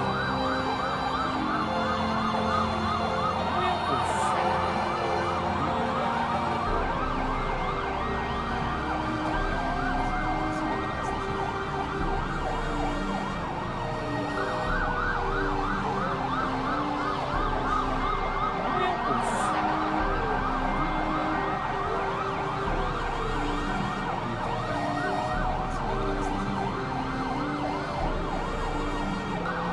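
Several emergency-vehicle sirens sounding at once, overlapping fast yelping sweeps and slower rising-and-falling wails, without a break.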